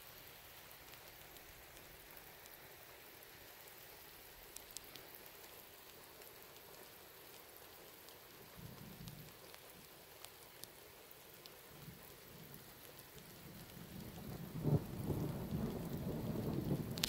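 Steady rain with distant thunder: a short low rumble about halfway through, then a longer, louder rumble that builds near the end.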